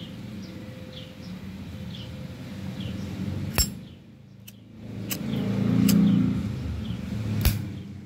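Zippo lighter's hinged metal lid clinking open about a third of the way in and snapping shut near the end, with a couple of smaller metal clicks in between. A low vehicle rumble swells in the background about midway.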